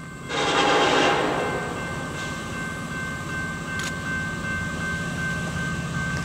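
Approaching diesel freight locomotives, heard at a distance as a steady low rumble. A louder burst of noise in the first second settles back into the steady sound, with thin high tones held over it.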